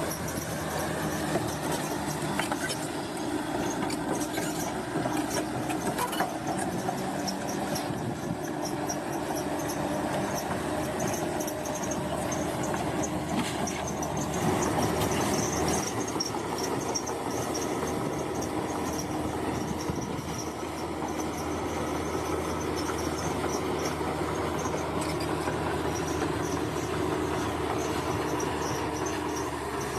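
Crawler bulldozer working: its diesel engine runs steadily while the steel tracks clank and squeal.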